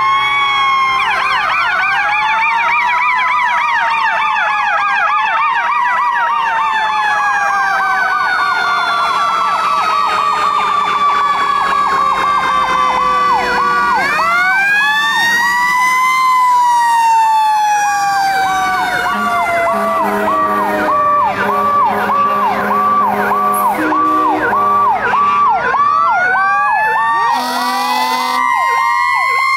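Several emergency-vehicle sirens sounding at once as fire trucks pass: slow wails rising and falling in pitch, one winding up about halfway through and then slowly sliding down, over a fast two-tone yelp that starts before the middle.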